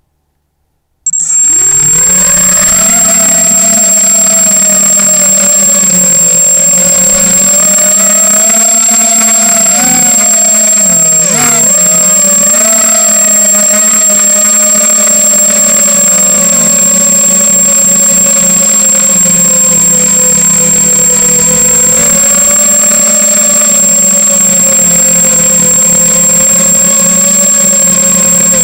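Brushless motors and propellers of a 250-size FPV quadcopter running: a loud, steady buzzing whine that starts abruptly about a second in. Its pitch wavers and dips briefly around the middle. A constant high-pitched tone sits over it throughout.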